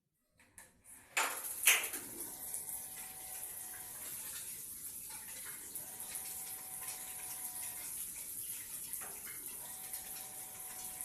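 Water running steadily from a tap, after a couple of sharp knocks about a second in.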